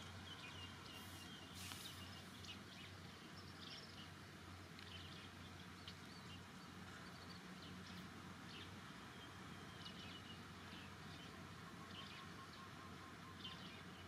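Very quiet background with a steady low hum and scattered faint, short high-pitched chirps.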